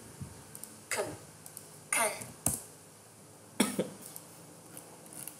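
Three short voice sounds, each falling quickly in pitch, about a second apart, with a sharp click between the second and third.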